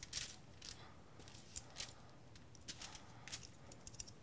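Faint, scattered crinkles of aluminium foil as a foil-lined baking pan is handled.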